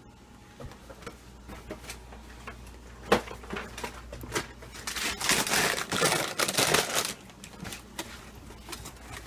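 Kitchen handling noise: scattered clicks and knocks, with a rustling crinkle of a Froot Loops cereal bag being opened and handled for about two seconds near the middle.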